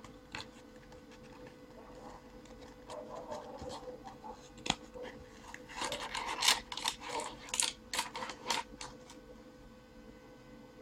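A small cardboard product box being opened by hand, with flaps and contents scraping and rustling against the cardboard in uneven bursts and a few sharp clicks. It is busiest in the second half.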